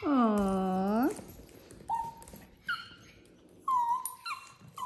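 Small dogs whining: first a loud, drawn-out cry that dips in pitch and rises again, lasting about a second, then a string of short, high-pitched whines spaced about a second apart.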